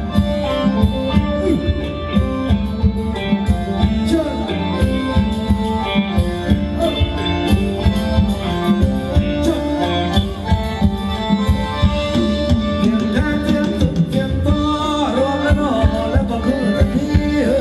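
Live band playing a Thai ramwong dance song, loud, with a steady drum beat under the melody.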